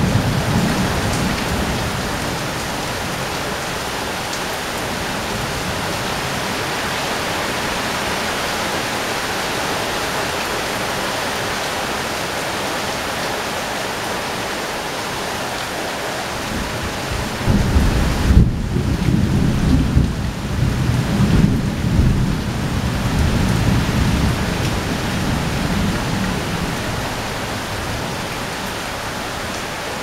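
Heavy rain drumming on corrugated roof sheets as a steady hiss. About halfway through, a low, gusty rumble swells in on top of the rain for several seconds, then fades back to the rain alone.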